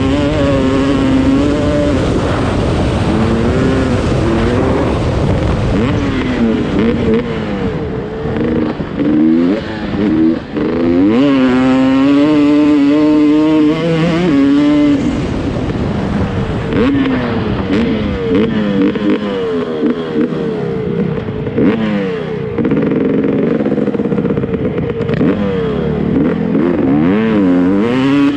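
Off-road dirt bike engine revving up and down as the throttle is opened and closed, its pitch rising and falling over and over, with a longer high-revving stretch around the middle.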